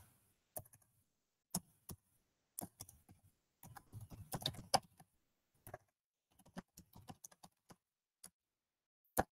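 Computer keyboard keys clicking as a line of text is typed, in irregular keystrokes with a quicker run of them about four seconds in and a sharper single click near the end.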